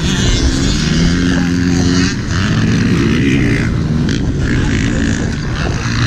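Dirt bike engines idling while the bikes sit stopped, the pitch shifting slightly about two seconds in.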